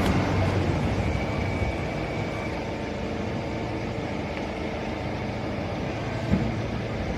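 Hydraulic baling press running: a steady mechanical hum from its electric motor and hydraulic pump, with a short knock about six seconds in.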